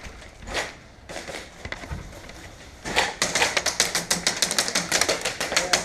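Airsoft gunfire: a few scattered shots, then from about three seconds in a dense run of rapid snapping shots and hits, several a second.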